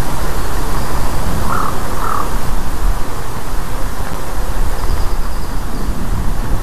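Two short harsh calls from a fledged eaglet, about half a second apart and about a second and a half in. They sit over steady wind buffeting the microphone, which is the loudest sound.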